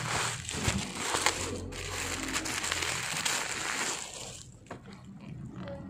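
Plastic mailer bag crinkling and crackling as it is handled and pulled open by hand. The crinkling dies down about four seconds in, leaving a few light handling clicks.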